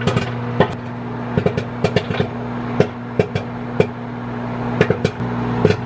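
Popcorn kernels popping in a Presto PowerPop microwave popper bowl: irregular sharp pops, about two or three a second, over the steady hum of the running microwave oven.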